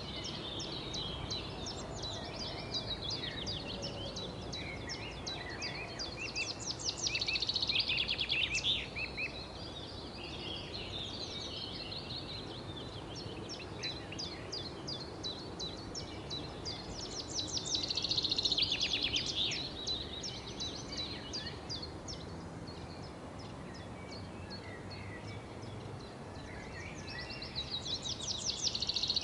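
Songbirds chirping and trilling over a steady background hiss, with three louder bursts of rapid chirping about ten seconds apart.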